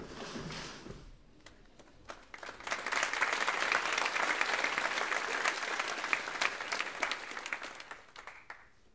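Audience applauding, starting about two and a half seconds in, holding steady, then dying away near the end.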